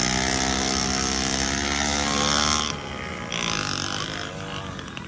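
Motorcycle engine running steadily at close range while riding, then easing off about two and a half seconds in, leaving quieter, uneven engine noise.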